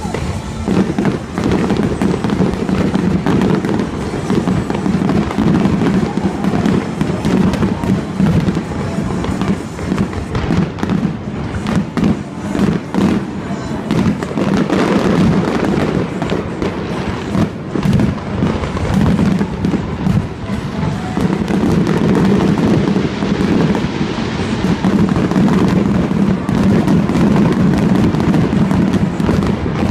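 Fireworks bursting in quick succession, many sharp bangs and crackles throughout, with music playing underneath.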